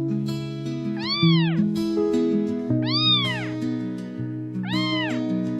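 A kitten meowing three times, each meow rising and then falling in pitch, over gentle plucked-string music.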